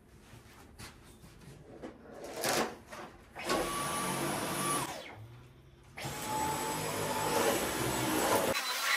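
Cordless stick vacuum cleaner switched on about three and a half seconds in, running with a steady high whine. It cuts out briefly near five seconds, then runs again at a slightly lower pitch until just before the end. A little handling noise comes before it starts.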